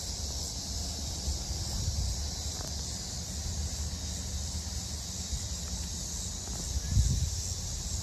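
Outdoor ambience: wind rumbling on the microphone under a steady high-pitched hiss, with a single knock about seven seconds in.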